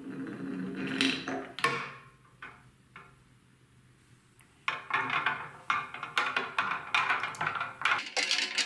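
Plastic marble-run balls in a clear glass bowl of water: first a ball rolls off the chute and drops in. Then, from about five seconds in, a hand swirls them about, with water sloshing and the balls clacking against each other and the glass.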